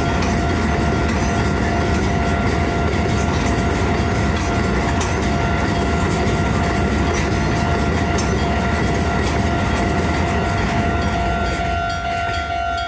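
A freight train of hopper wagons rolling past a level crossing, wheels clacking over the rail joints, while the crossing's warning bell rings steadily. The bell cuts off at the very end as the train clears.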